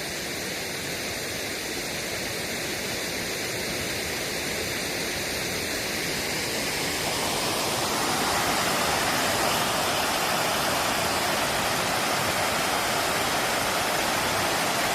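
Steady rush of flowing creek water, growing louder about halfway through.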